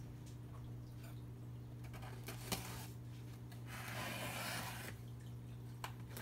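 Packing tape being peeled off the top of a cardboard shipping box: a tearing rip lasting about a second midway, with a few light taps and scratches of fingers on the cardboard, over a steady low hum.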